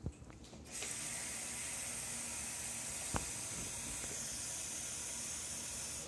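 Kitchen tap turned on about a second in, water running steadily into a plastic bowl of potatoes in the sink to wash them, then shut off at the end.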